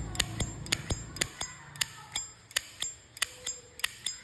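A 1972 Zippo Slim lighter in polished chrome, handled in a quick series of sharp metallic clicks, about three or four a second: the hinged lid being flicked open and snapped shut.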